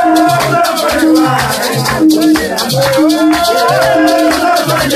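Voices singing over hand shakers rattling steadily and a steady low beat of about two notes a second.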